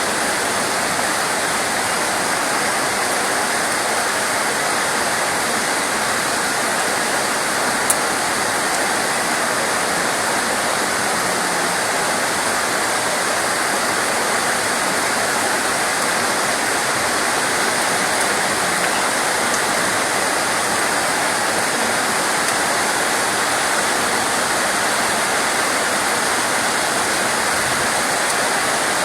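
Steady, even rain hiss. A single brief click about eight seconds in.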